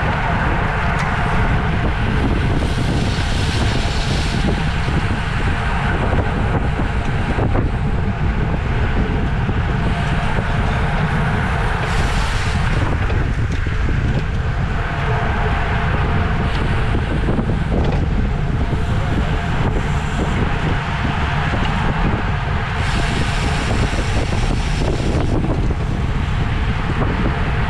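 Steady wind noise buffeting a microphone carried at speed on a racing bicycle, with a few brief hissing surges.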